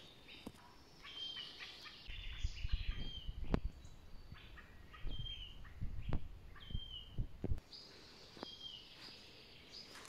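Forest songbirds singing, one repeating a short phrase that ends in a falling whistle about every second and a half to two seconds. Low thuds and rumbling come through in the middle of the stretch.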